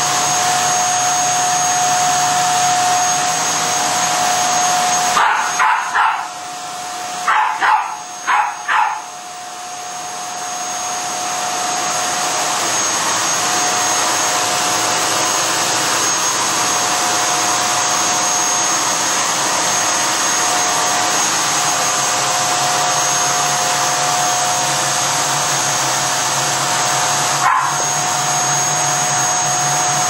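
Canister vacuum cleaner running with a steady whine. A Finnish Lapphund puppy barks at it in two short runs of barks between about five and nine seconds in, and once more near the end.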